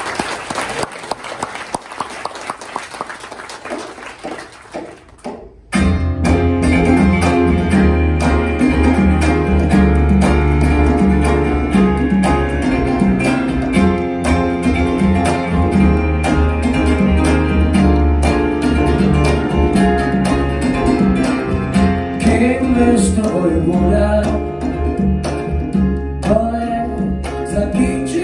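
Audience clapping for about six seconds, then a song starts abruptly on grand piano and upright double bass, with strong, steady bass notes under the piano.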